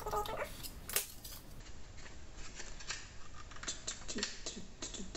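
Plastic clicks and scraping as a Seagate Expansion Desktop drive's enclosure is pried and wiggled apart. There is a sharp click about a second in and a run of quick clicks near the end.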